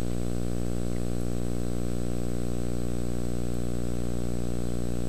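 Gas tungsten arc (TIG) welding arc burning on mild steel plate without filler metal: a steady electrical hum with an even hiss over it, holding constant as the bead is run.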